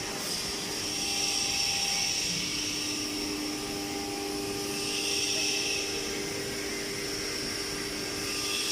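ATC CNC router running with its spindle spinning: a steady machine whine made of several held tones, with a hiss that swells and eases every few seconds.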